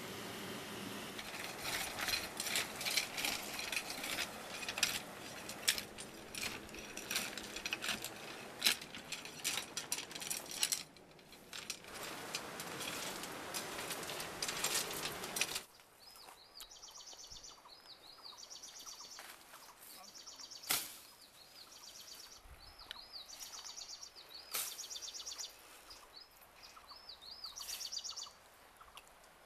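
Dense crackling and rustling of sticks, leafy branches and stones being handled, with sharp snaps, which stops suddenly about halfway through. After it come quieter outdoor surroundings with high, repeated bird chirping and an occasional sharp click.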